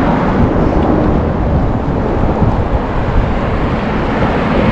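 Wind rumbling and buffeting on the microphone of a camera carried on a moving bicycle, a steady loud roar with road traffic underneath.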